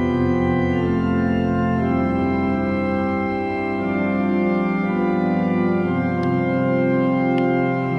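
Organ music: sustained chords that shift every couple of seconds, some notes with a slight wavering tremolo.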